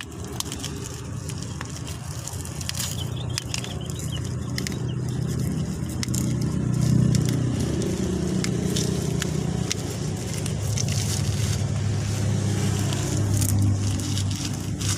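Thin plastic air-layering wrap crinkling and crackling as it is peeled and torn off the soil root ball of a rooted preh cutting, in a steady stream of small crackles and scrapes. A steady low hum runs underneath.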